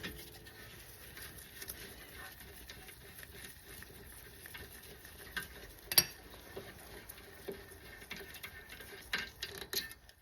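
Faint, scattered metallic clicks and ticks, with one sharper click about six seconds in and a few more near the end, as the 14 mm caliper bolts are worked loose and backed out with hand tools.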